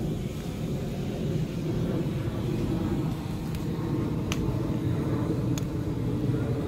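Steady low engine rumble, with two brief clicks about four and five and a half seconds in.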